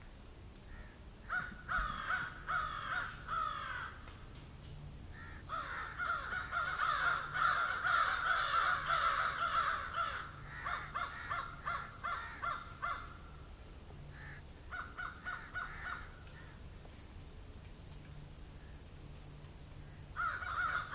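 Crows cawing outdoors in repeated bouts, with a long spell of dense overlapping caws in the middle and a steady high hiss underneath.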